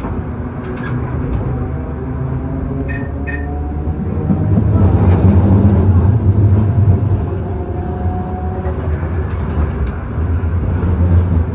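Perley Thomas 900-series streetcar running on its rails, heard from on board: a steady low rumble of motors and wheels with a faint hum of a few steady tones over it. The rumble grows louder about four and a half seconds in, then eases. Two short high pings come about three seconds in.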